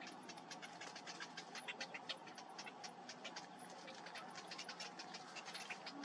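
Cinnamon bittern chicks begging for food: a faint, fast, uneven run of short, high ticking calls.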